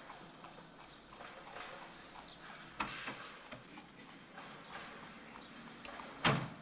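Scattered light clicks and taps, then a single heavy slam of a convertible's car door about six seconds in, the loudest sound.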